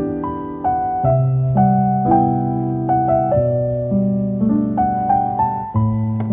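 Background piano music, with notes and chords struck about twice a second over held bass notes.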